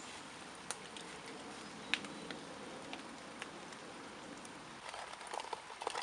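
Small wood campfire under a billy can crackling, with a few sharp pops over a steady soft hiss. A cluster of soft knocks comes near the end.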